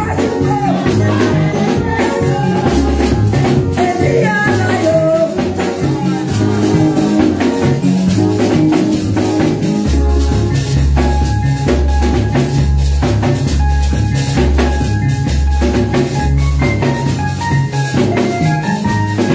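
Praise music with a drum kit and a deep, stepping bass line. A woman's singing voice comes through a microphone in the first few seconds.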